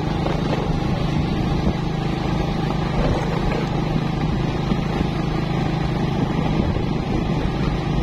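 Motorcycle engine running at a steady cruise, heard from the rider's seat: a constant drone with no change in speed, over a haze of road noise from the gravel.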